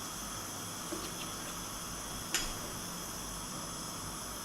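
Steady low kitchen hiss with two light clicks, a faint one about a second in and a sharper one just after two seconds.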